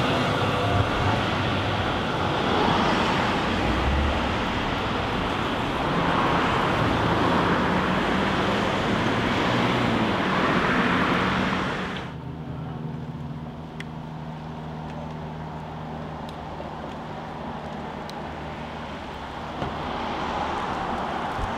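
A tram rolling past close, followed by road traffic noise on a city street. About twelve seconds in, the sound drops abruptly to a quieter, steady traffic hum.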